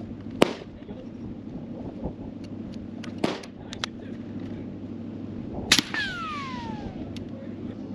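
Suppressed CVA Scout single-shot pistol in 300 Blackout firing: short sharp cracks, the loudest about two-thirds in, followed by a ringing tone that falls in pitch. Lighter clicks and knocks fall between the cracks.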